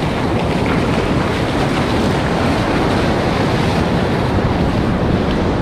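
Ocean surf washing up the beach and around a wader's legs, with wind rumbling on the microphone: a steady rush of water noise.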